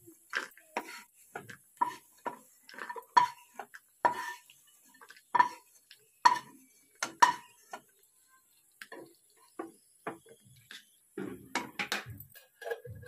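Wooden spatula tapping and scraping against a nonstick kadai as fried cashews and almonds are scooped out into a small bowl. It makes a run of quick clicks and knocks, about two a second, that thin out in the second half.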